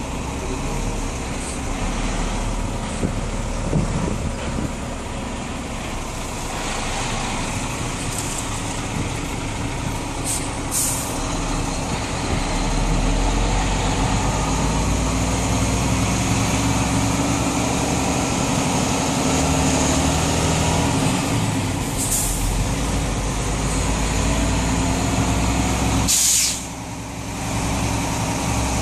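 Delivery truck's engine running as it drives slowly, heard from inside the cab, getting louder about twelve seconds in. Short hisses of air come twice around ten seconds in and again around 22 and 26 seconds. At the last hiss the engine sound briefly drops away and then returns.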